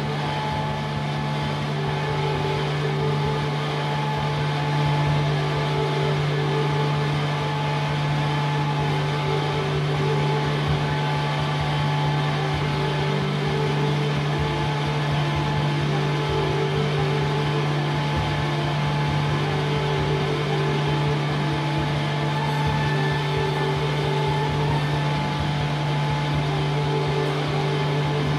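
Experimental ambient drone music: a steady, unchanging low drone with several higher tones held above it over a dense hiss, with no rhythm or melody.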